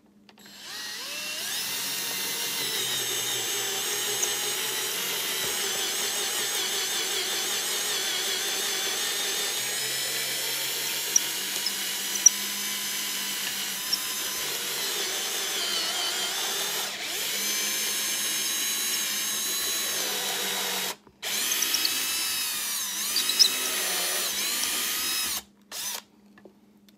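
Power drill running a countersink drill bit. It runs steadily for about twenty seconds, stops for a moment, runs again for about four seconds, then gives one short final burst.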